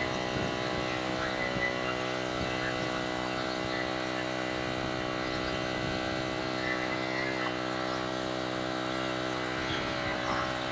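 Craftsman LT1000 riding mower engine running steadily after a spring tune-up.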